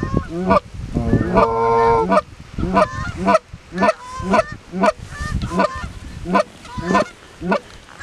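Canada goose honks and clucks, one after another about twice a second, with one longer drawn-out honk about a second in.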